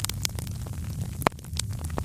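Wood fire in a fireplace crackling over a steady low rumble, with irregular sharp pops; the loudest pop comes just past halfway.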